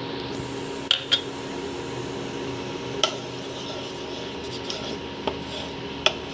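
Metal cookware clinking: a few sharp knocks of a utensil against a pan, two close together about a second in, then single ones around three seconds, five seconds and near the end, over a steady low hum.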